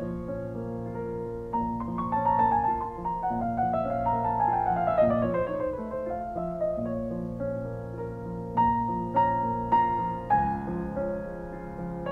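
Background piano music: held chords and a melody, with a falling run of notes about four seconds in.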